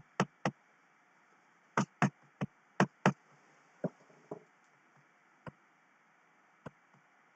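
Sharp computer mouse and keyboard clicks at an irregular pace, about a dozen, bunched most closely and loudest between about two and three seconds in.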